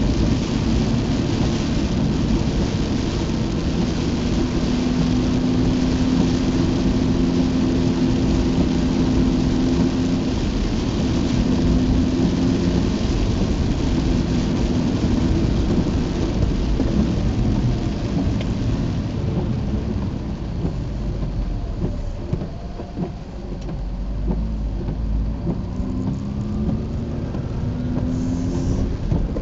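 Heavy rain beating on a Mazda RX-8 and its tyres hissing through standing water, heard from inside the cabin, with the car's rotary engine running steadily underneath. The rain hiss thins after about twenty seconds, and the engine note rises near the end as the car speeds up.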